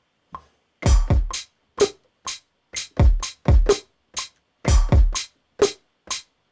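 Electronic pop drum beat from the Anima Ascent 'Human Kit' in Maschine, at 125 BPM: kick drum, snare and hi-hat samples playing in a repeating groove, with the kicks falling in close pairs.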